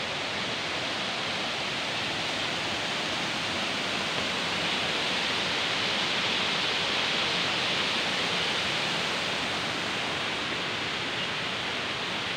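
Waterfall cascading over rocks: a steady rush of falling water, swelling slightly midway.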